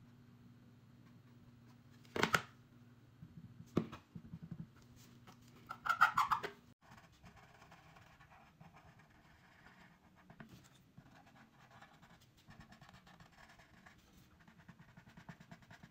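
Handling noises at a tabletop: two sharp knocks and, about six seconds in, a louder short clatter over a low hum. Then faint scratching and dabbing of a paint marker's tip on a plastic light switch cover.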